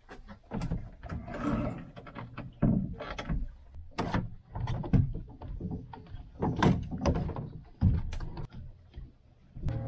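Irregular knocks, clunks and rattles of a bow-mounted Minn Kota trolling motor being handled and deployed on a fibreglass boat deck, mixed with footsteps on the deck.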